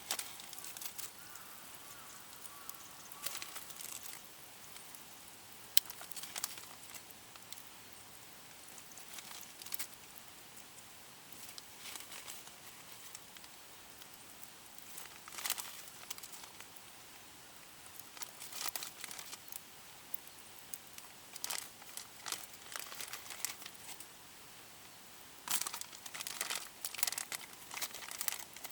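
Crinkling and rustling in irregular short bursts, as crinkly material is handled, with one sharp click about six seconds in.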